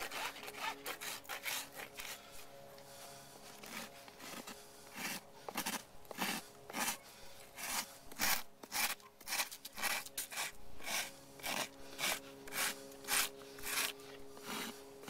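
Farrier's rasp filing a horse's hoof held between his knees: repeated scraping strokes, loose and uneven at first, then settling into a steady rhythm of about two strokes a second.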